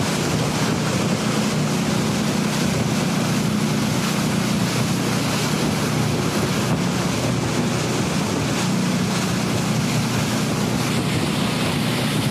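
A boat's engine drones steadily at sea, under a constant rush of wind and water with wind buffeting the microphone.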